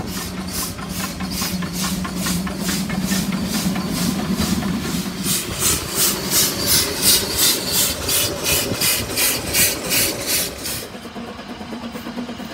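Narrow-gauge steam locomotive chuffing, its exhaust beats coming evenly at about two to three a second. The beats stop about eleven seconds in, leaving a quieter running sound.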